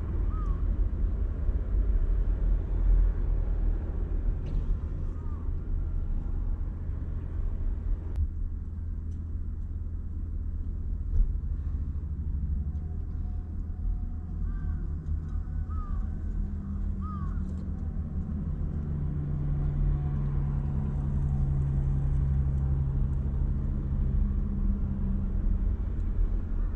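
Steady low vehicle rumble heard from inside a car, with a low droning hum joining in after about sixteen seconds and fading near the end.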